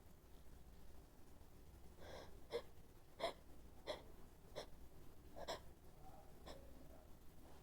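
A woman's quick, hitching gasps, about seven short sharp breaths in a row starting about two seconds in: the build-up of a sneeze that has not yet come.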